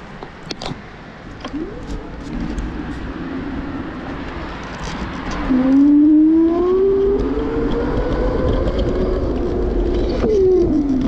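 Road traffic: a car's engine note rising steadily in pitch from about halfway through as it speeds up, then dropping near the end, over a low rumble.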